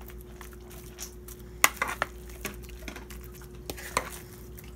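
Metal spoon scooping soaked bread and French toast mix from a bowl and dropping it into a cast iron skillet: a few sharp clinks and scrapes of the spoon, the loudest about a second and a half in, over a faint steady hum.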